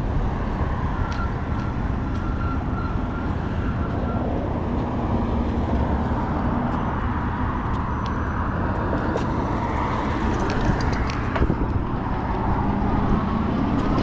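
Wind buffeting the microphone on a moving e-bike, with tyre noise on pavement. A faint steady whine from the e-bike's electric motor under pedal assist fades out about four seconds in as the bike slows to cross the road. A few light clicks come about ten to eleven seconds in.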